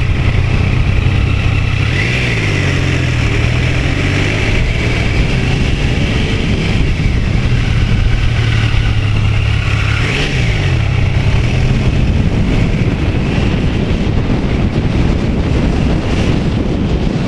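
Motorcycle engine running steadily under way, heard from a helmet camera, with the engine note dipping and climbing again twice, about two and ten seconds in, over a rush of wind noise.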